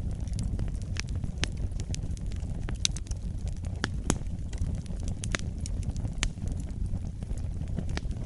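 Wood fire burning in a fireplace: a steady low rumble of the flames with irregular sharp crackles and pops, a couple of louder pops about three and four seconds in.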